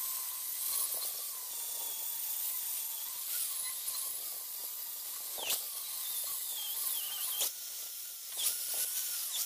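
Angle grinder with a grinding wheel dressing down a fresh weld on a steel trailer frame: a steady motor whine that wavers in pitch as the wheel is pressed onto the metal, over the hiss of the wheel grinding steel. There are a few brief scrapes about halfway through and again near the end.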